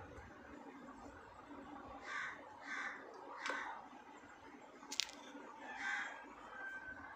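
A few short, harsh bird calls in the background, spaced about half a second to two seconds apart, with a single sharp click about five seconds in.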